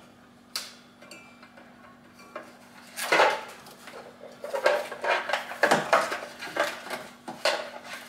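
Clicks, knocks and taps of a plastic electronic control module being pressed onto a Secop fridge compressor and handled with a screwdriver. It is mostly quiet for the first few seconds, with a knock about three seconds in, then a run of clicks and taps in the second half over a faint steady hum.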